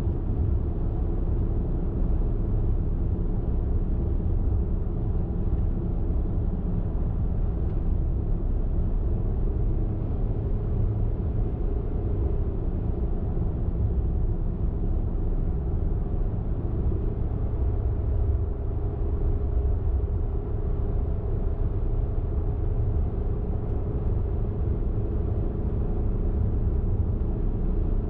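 Car driving at a steady highway speed: a steady low rumble of engine and tyre-on-road noise.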